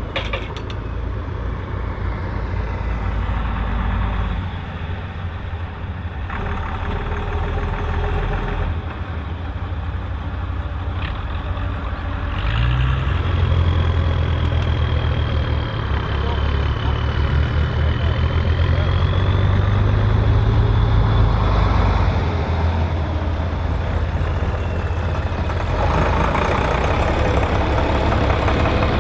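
Volvo BM 814 tractor's diesel engine running steadily under load, pulling a six-furrow plough. The engine gets louder about twelve seconds in and again near the end, and a thin high whistle rises and falls for several seconds in the middle.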